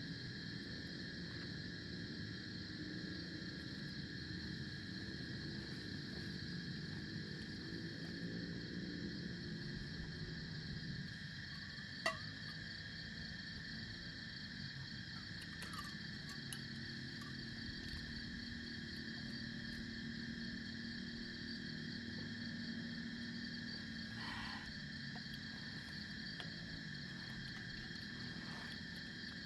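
Steady chorus of crickets and other insects, several high continuous trills, over a low background hum. One sharp click about twelve seconds in.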